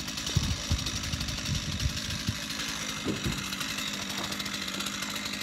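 Two-stroke chainsaw engine running with a steady buzzing note, with a few low knocks in the first three seconds or so.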